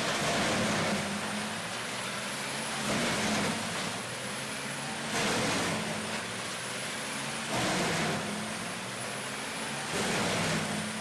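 Rotochopper B66T wood grinder running: a steady engine drone with a faint high whine, swelling into a louder surge of grinding noise about every two and a half seconds.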